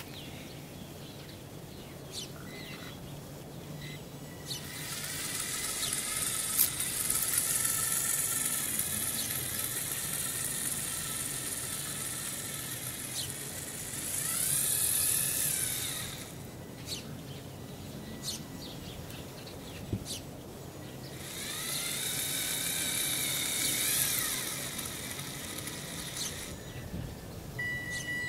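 LEGO electric motors and plastic gear train whining as a Bluetooth-controlled LEGO model drives, in two long spells with a quieter gap between them. The pitch bends up and down in the middle of the first spell.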